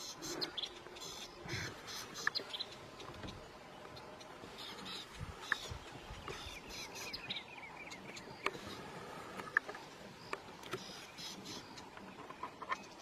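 Birds calling in the bush, with runs of rapid, high repeated chirps and a few falling whistled notes, over a low background hiss. A few sharp clicks stand out as the loudest moments.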